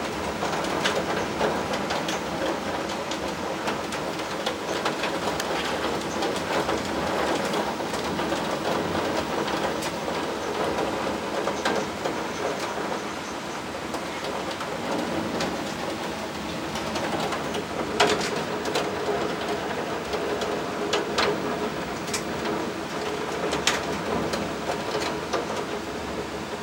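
Heavy downpour: a steady hiss of rain falling, with a few sharp taps standing out, the loudest about two-thirds of the way in.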